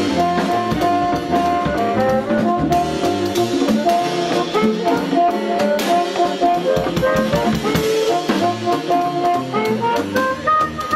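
Live jazz: an amplified harmonica, cupped against a hand-held microphone, plays a solo of short held notes stepping up and down, with a drum kit behind it.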